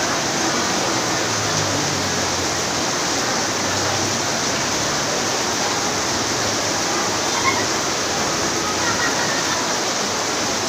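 Heavy rain falling, a steady dense hiss, with one small tick about seven and a half seconds in.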